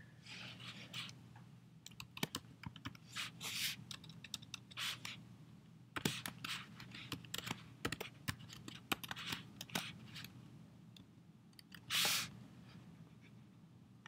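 Typing on a computer keyboard: irregular key clicks, some in quick runs, over a low steady hum, with a brief swish about twelve seconds in.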